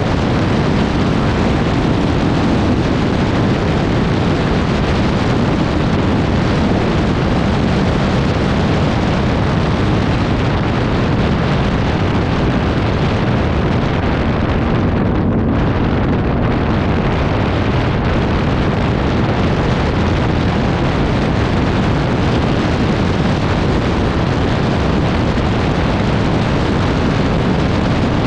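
ATV engine running steadily while riding, buried under loud wind buffeting on the microphone.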